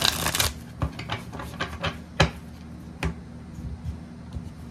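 A deck of tarot cards riffle-shuffled for about half a second, then a string of taps and clicks as the cards are squared and set down in piles on a wooden table, the loudest about two seconds in.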